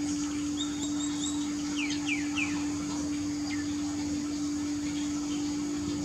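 A steady low hum, with high bird chirps over it: a short run of clipped notes about a second in, then three quick falling chirps around two seconds in and a fainter one a second later.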